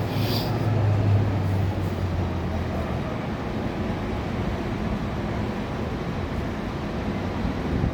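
A vehicle engine's low, steady hum that fades away about three seconds in, over a steady rushing noise.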